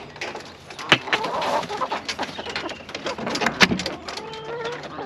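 Hens clucking inside a mobile chicken coop, with two sharp knocks, about a second in and about three and a half seconds in.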